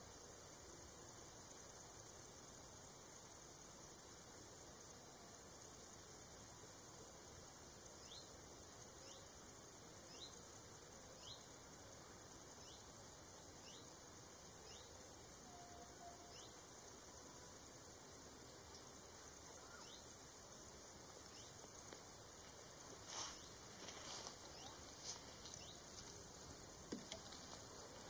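Crickets chirping in a grassy meadow in a continuous high-pitched trill, with scattered short high chirps through the middle and a few light ticks near the end.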